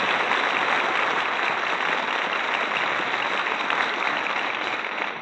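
Studio audience applauding, many people clapping at once, heard on an old radio broadcast recording.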